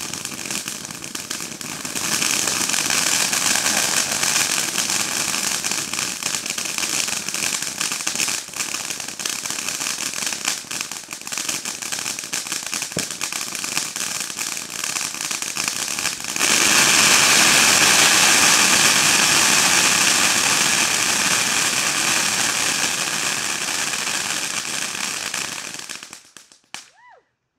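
Tailgater ground firework fountain going off: a continuous hiss thick with rapid crackles as it sprays sparks and crackling stars. It grows louder about two seconds in and again past the midpoint for its finale, then dies out shortly before the end.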